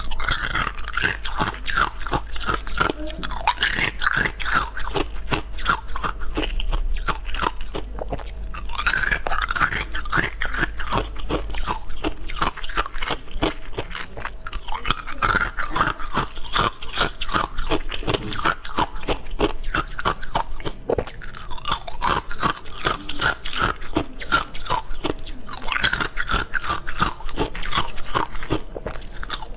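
Clear ice cubes being bitten and chewed, a dense run of sharp cracks and crunches that comes in repeated bouts as each piece is broken up between the teeth.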